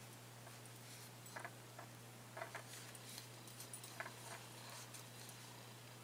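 Faint, scattered soft clicks and rustles of a crochet hook working yarn, over a steady low hum.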